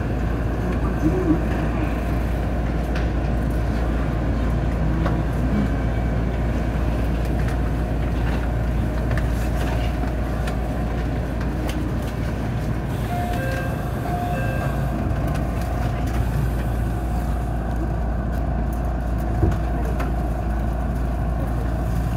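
Steady hum of a JR Central 313 series electric train standing at the platform, heard from inside the cab, with station ambience. A few short beeping tones sound about halfway through.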